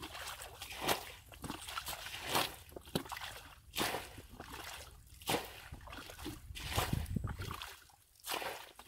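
Muddy water sloshing and splashing in repeated strokes, about one a second, as a bucket is dipped into a shallow puddle and tipped out, with trickling between the splashes.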